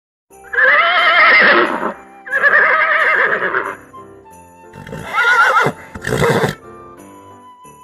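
A horse whinnying four times, two long calls then two shorter ones, over background music.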